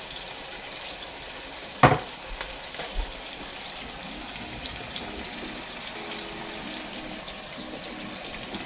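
Kitchen tap running as a tin can is rinsed under it, with a sharp knock about two seconds in and a couple of lighter ones just after.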